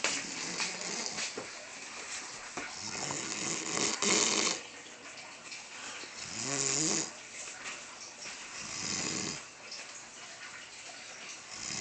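A sleeping man snoring, one snore every two to three seconds, the longest and loudest about three to four seconds in.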